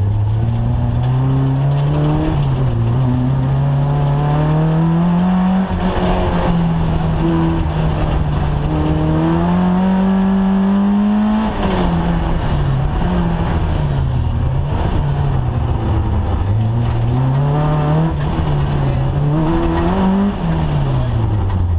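Peugeot 205 GTI Mi16's 16-valve four-cylinder engine heard from inside the car under hard rally driving. The revs climb through the gears with brief dips at the gear changes, drop sharply about halfway through, then rise and fall repeatedly and fall away near the end.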